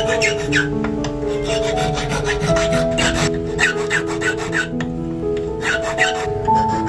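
Hand file rasping on a small steel blade in quick repeated strokes, with a short pause about five seconds in. Background music plays underneath.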